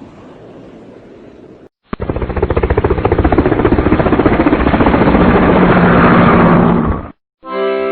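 A fading rumble, a short break, then a loud, fast and even chopping mechanical sound that grows a little louder and stops suddenly about seven seconds in.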